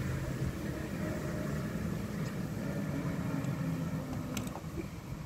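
Steady low engine hum whose pitch shifts slowly, like a motor running some way off.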